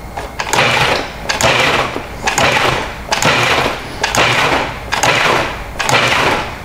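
Food processor pulsed about seven times in quick succession, roughly once a second, each pulse a short whirr of the blade chopping mango chunks into a tomato salsa.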